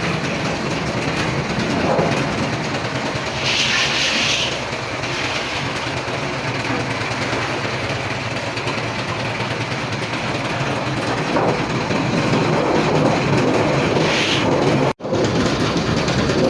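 Papad-making machinery running with a steady mechanical clatter, with a short hiss about four seconds in and again near the end. The sound cuts out for an instant about a second before the end.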